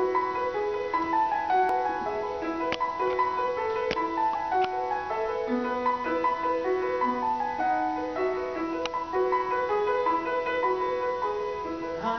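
Piano accompaniment playing the introduction to a show-tune duet: a flowing pattern of broken chords, with lower bass notes joining about halfway through.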